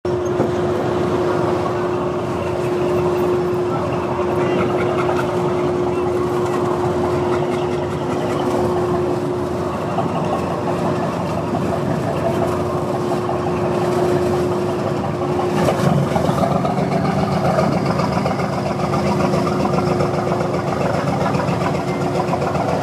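Small motor launch's engine running steadily, with a constant hum over the drone. About sixteen seconds in, a second, lower engine note joins in.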